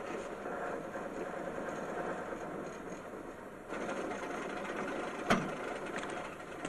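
A motor vehicle's engine running at low speed as it pulls up, with a fast, even mechanical ticking. One sharp click comes about five seconds in.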